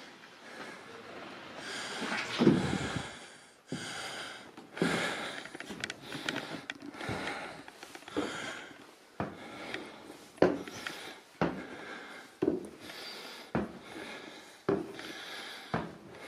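Footsteps on old wooden stairs: irregular shuffling and knocks at first, with one louder thump, then slow steady steps about once a second through the second half.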